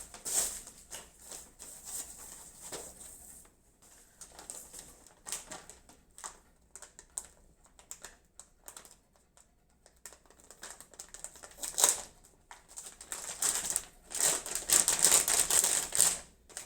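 Handling of a graphics card and its packaging: irregular clicks and crinkling rustles, sparse at first and thickening into rapid clatter and rustling in the last few seconds.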